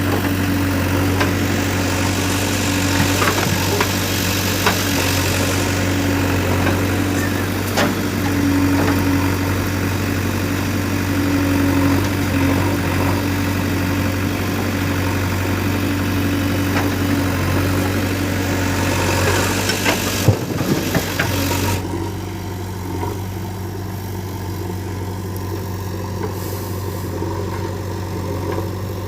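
Diesel machinery at a stone-loading job, a JCB backhoe loader and tractor, running steadily with a low engine drone and scattered knocks and clatter. About two-thirds of the way through, a higher hum and hiss drop away, leaving the low drone.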